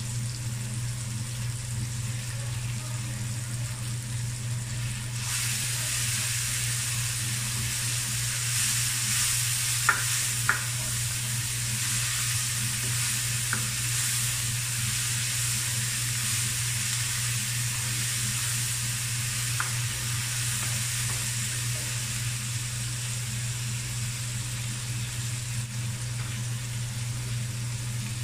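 Onions and tomatoes sizzling in oil in a nonstick wok while a plastic spatula stirs and scrapes them, the sizzle growing louder about five seconds in. A few sharp taps come around ten and thirteen seconds in, and a steady low hum runs underneath.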